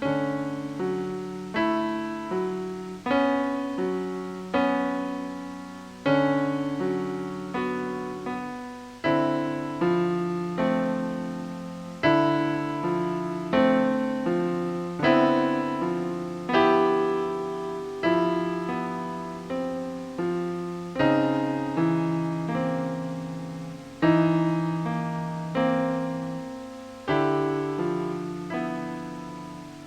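Piano-like keyboard music: a slow stream of struck notes and chords, each starting sharply and fading, about one new attack a second.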